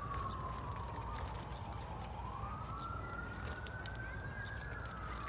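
Emergency vehicle siren wailing, its pitch sliding slowly down, back up, and down again near the end.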